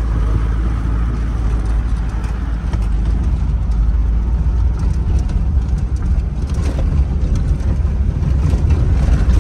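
Off-road vehicle's engine running steadily as it drives over a rough, rocky dirt track, heard from inside the cab. Occasional knocks and rattles from the bumpy ground, more of them in the second half.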